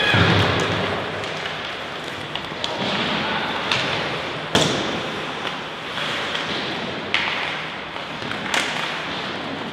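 Sharp knocks and thuds from game play during a junior team match: a few separate strikes, the loudest about four and a half seconds in and again near the end, over a steady background hiss.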